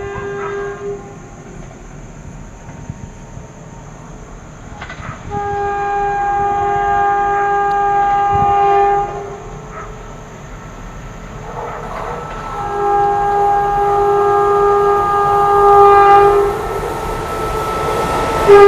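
Horn of a WAG-7 electric freight locomotive: the tail of one blast at the start, then two long steady blasts of about four seconds each, the second a little louder as the train draws nearer.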